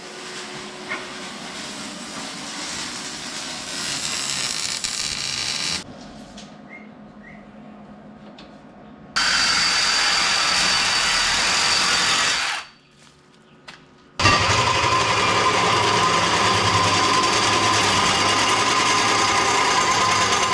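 Small gasoline engine running steadily, heard in several short clips that cut in and out abruptly, with the loudest running near the end.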